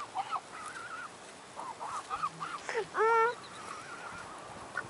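Canada geese honking and calling: scattered short calls, with one loud honk about three seconds in.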